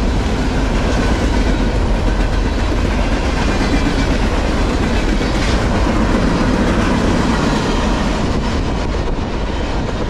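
Freight train cars rolling past at speed: a steady loud rumble of steel wheels on rail with clickety-clack, easing a little near the end.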